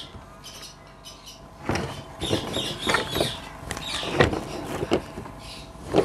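Wooden knocks and clatter from a wooden beehive frame-assembly jig loaded with frames being flipped over and handled on a table. The knocks begin about two seconds in and come several times, irregularly.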